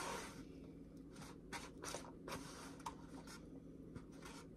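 Eating noises at a meal: short, irregular scrapes and rubs, a few to the second, over a faint steady hum.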